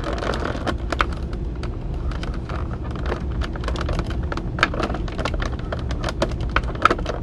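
Thin clear plastic blister packaging crinkling and crackling under the hands, with irregular sharp clicks, as a toy figure is worked free of its tray. A low steady hum runs underneath.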